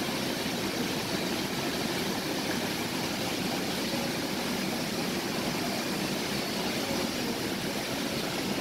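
Steady rushing of water spilling over a swimming pool's stepped cascade, an even wash of noise with no separate events.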